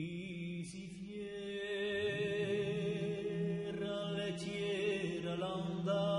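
Corsican a cappella vocal quartet singing polyphony: several men's voices hold long notes in close harmony over a steady low sustained note.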